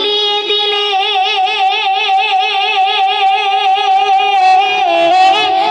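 A woman singing a Bengali gojol into a microphone, holding one long note with a wide vibrato, then sliding down to a lower note near the end.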